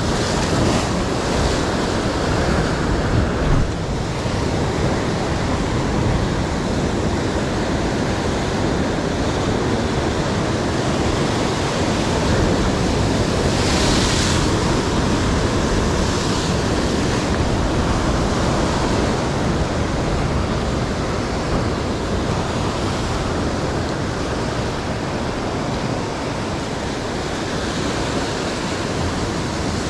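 Ocean surf surging and breaking against a rock ledge directly below. About halfway through, a bigger wave crashes into white spray, briefly hissing louder.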